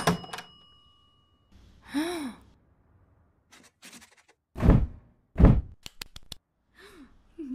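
Cartoon sound effects: a character's short vocal sigh about two seconds in, then two heavy thuds in quick succession, followed by a rapid run of sharp clicks and small vocal noises near the end.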